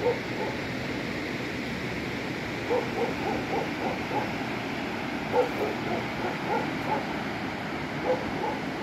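Steady rush of a river in flood, with an animal's short, high yelps coming in quick runs, mostly in the middle of the stretch.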